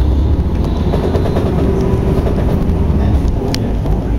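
Engine and road noise heard from inside a moving road vehicle driving in the rain: a steady low rumble, with a single sharp click about three and a half seconds in.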